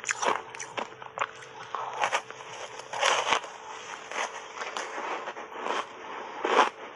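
Refrozen block ice thickly coated in matcha powder being bitten and crunched between the teeth, an irregular run of sharp cracks and crackles every half second or so.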